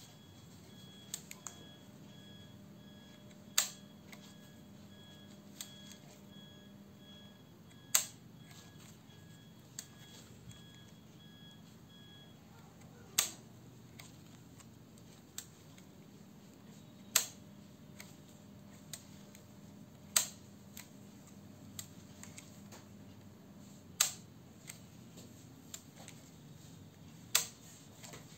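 Leaf shutter of a Ricohflex twin-lens reflex camera, a Citizen shutter, being cocked and fired over and over. A sharp click comes every three to four seconds, with fainter clicks in between.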